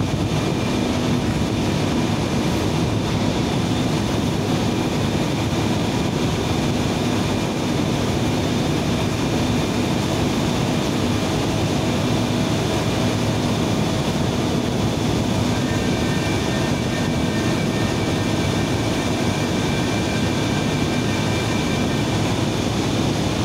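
Steady, loud machinery drone of a power station's turbine hall, a dense unbroken noise with faint steady tones in it; a couple of higher tones join about two-thirds of the way through.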